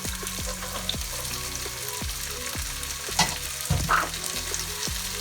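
Chopped onion, bell peppers and just-added green peas sizzling in hot vegetable oil in a pot, stirred, with a utensil knocking against the pot a few times, loudest a little past three seconds and near four seconds in.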